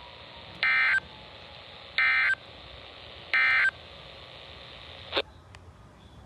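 Weather radio sending three short bursts of warbling digital data tones, about a second and a half apart. This is the end-of-message code that closes a National Weather Service severe thunderstorm warning. About five seconds in there is a short click as the radio's audio cuts off.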